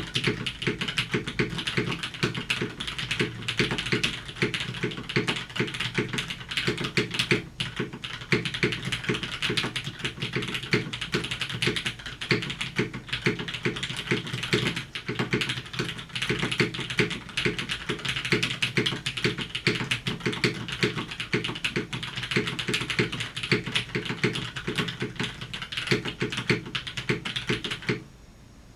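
Continuous fast typing on a custom 65% mechanical keyboard, a GAF 910 PC with a polycarbonate case and an aluminium plate, fitted with lubed and filmed Cherry MX Black linear switches and GMK keycaps. The keystrokes stop abruptly near the end.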